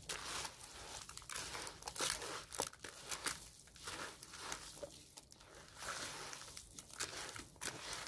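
Faint, irregular crinkling and rustling of food being handled: a run of small soft clicks and crackles.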